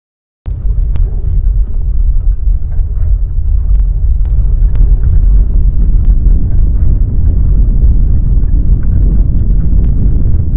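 Loud, low rumble picked up by a security camera's microphone during the M 5.1 earthquake's shaking, with scattered sharp clicks and rattles. It cuts in suddenly about half a second in and then runs on steadily.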